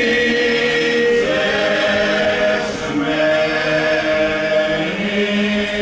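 Unaccompanied group singing of a traditional Slavonian folk song, with voices holding long notes together in drawn-out phrases and a short break about halfway through.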